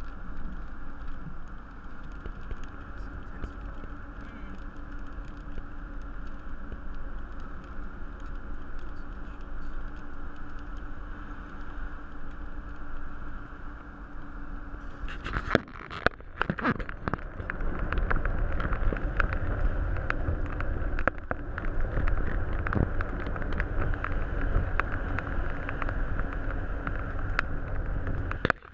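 A car driving, heard from inside: steady road and engine noise. About halfway through there is a cluster of sharp clicks and knocks, and after that the low rumble grows louder.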